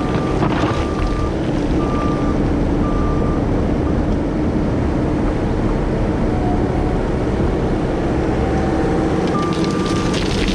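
Diesel engine of heavy equipment running steadily, with a backup alarm beeping in short repeated tones for the first few seconds and again near the end.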